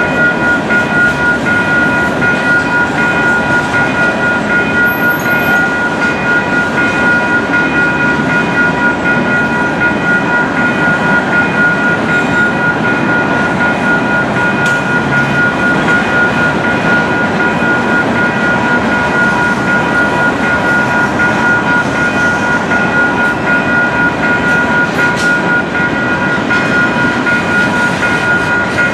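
CN freight train of covered hopper cars rolling steadily past: the continuous rumble of steel wheels on the rails. The crossing warning bell rings over it with a steady high tone.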